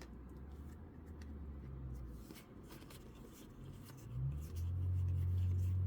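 Faint rustling and soft ticks of trading cards being handled and flipped through, over a low steady hum that grows louder about four seconds in.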